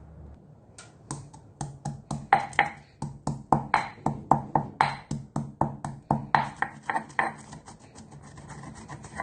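Pestle pounding black and white peppercorns in a mortar: sharp, regular strikes about three a second, giving way to softer grinding near the end.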